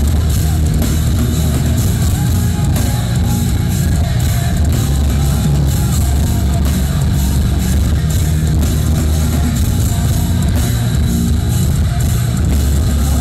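Heavy metal band playing live: distorted electric guitars, bass and a drum kit at full volume, loud and unbroken.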